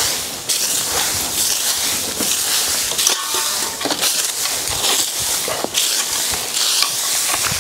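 Okoba, a traditional bundle broom, sweeping over dry sandy dirt: repeated scratchy swishes, one stroke after another.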